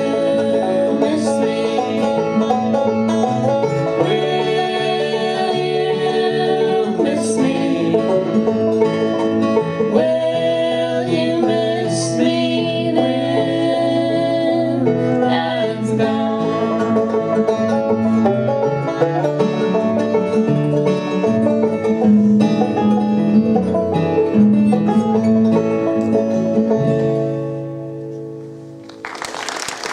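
Five-string banjo and acoustic guitar playing a bluegrass-style tune together; the music dies away near the end and applause breaks out just at the close.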